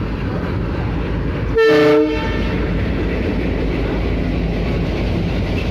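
WDM3D ALCO diesel locomotive's 16-cylinder ALCO 251 engine chugging slowly as it pulls past. About one and a half seconds in, there is a short, loud multi-tone horn blast lasting about half a second.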